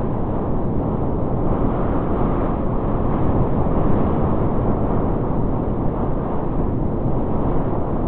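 Blizzard wind: a steady, low rushing noise of storm wind with no gusts standing out.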